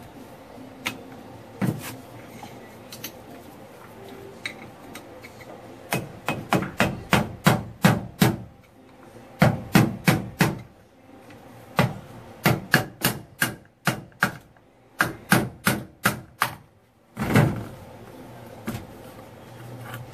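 Hammer blows on a screwdriver wedged under the metal end cap of a Jeep Wrangler JK front driveshaft's CV joint, driving the cap off. A few scattered knocks come first, then four runs of quick taps about four a second, and one heavier knock near the end.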